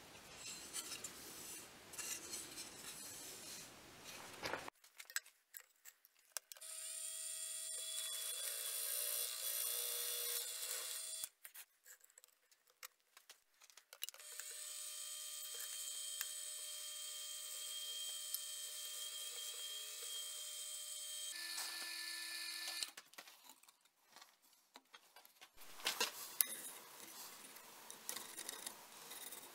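Drill press running and boring into an Osage orange handle block, in two long steady runs with a pause between. Near the end, light scratches and taps of a pencil marking the wood.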